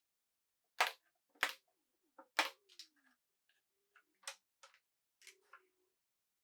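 Sharp clicks and light taps of wooden pieces being set against a wooden spacer block. Three louder clicks come in the first two and a half seconds, followed by scattered quieter ticks.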